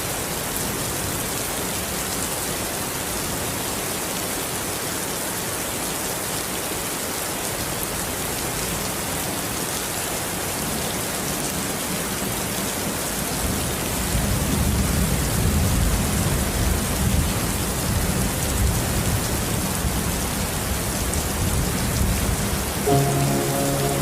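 Steady heavy rain falling as an even hiss. A low rumble joins about halfway through, and soft music with held notes comes in near the end.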